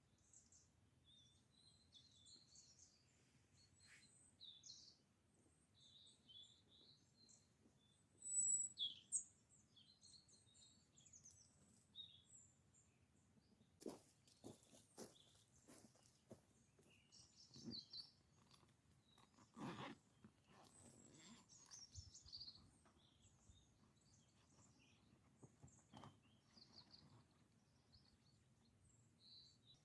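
Small birds chirping and calling on and off in woodland, short high notes with the loudest sharp call about eight seconds in. Scattered soft clicks and knocks come in the middle stretch.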